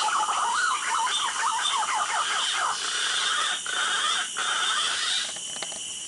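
Quick, squeaky chirping calls, birdlike, in a fast run that fades out about three seconds in, over a steady high-pitched drone of forest insects.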